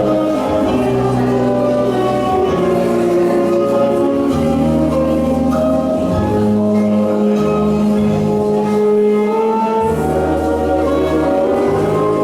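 Orchestral waltz music playing steadily, with sustained, changing chords.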